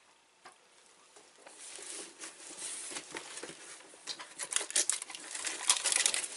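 Plastic snack packaging crinkling as it is handled. It starts about a second and a half in and grows louder toward the end, a dense run of small crackles.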